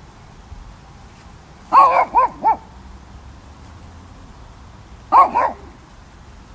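Shih Tzu barking: three quick, high-pitched barks about two seconds in, then two more about five seconds in.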